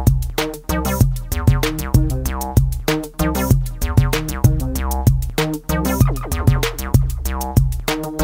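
Background electronic music with a steady drum-machine beat, synthesizer chords and heavy bass.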